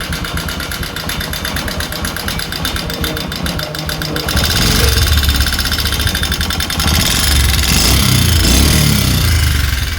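Bajaj Discover 125's single-cylinder motorcycle engine running with a fast, even ticking. About four seconds in it gets louder and deeper, as if revved.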